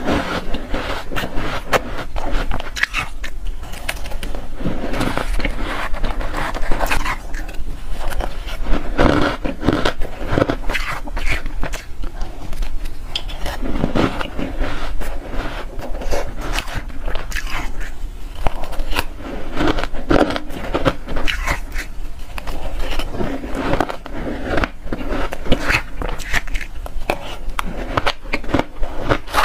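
Close-up crunching and chewing of soft, flavoured powdery ice. A metal spoon scrapes through the ice in a plastic tub. The crackling is dense and irregular throughout.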